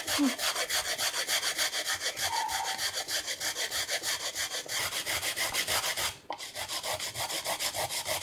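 Grilled coconut flesh grated on a flat stainless steel hand grater into a glass bowl, in fast, even rasping strokes. There is a short break about six seconds in.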